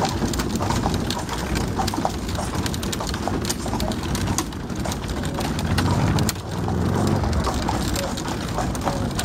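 Horse-drawn buggy rolling along a sealed road, the horse's hooves clip-clopping in a run of sharp clicks over the rumble of the wheels. The rumble gets louder about six seconds in.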